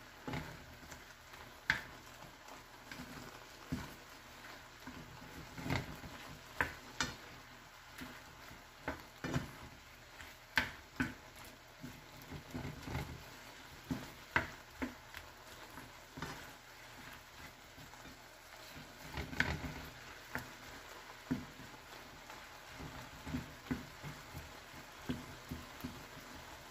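A wooden spatula stirring and turning shrimp and mushrooms in a nonstick frying pan, knocking and scraping against the pan at irregular moments about once a second. Under it the pan's simmering liquid sizzles steadily.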